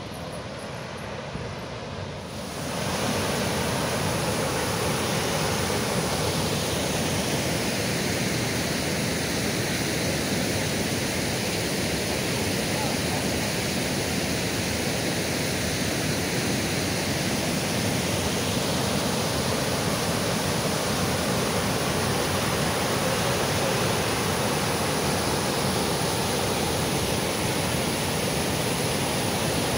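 Water rushing over the rock cascades of Duduma waterfall, a steady, unbroken rush that becomes louder about two and a half seconds in and then holds.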